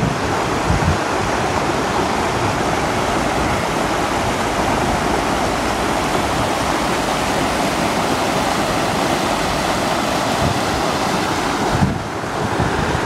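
Flooded wadi's muddy water rushing in a steady wash of noise, with wind buffeting the microphone; a little quieter near the end.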